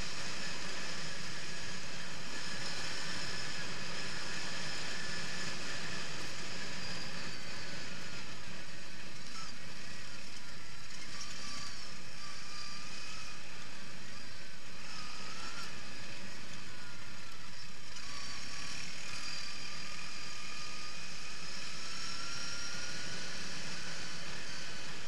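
Quad bike (ATV) engine running steadily under way on a dirt track, its pitch rising and falling a little with the throttle, heard from the rider's seat.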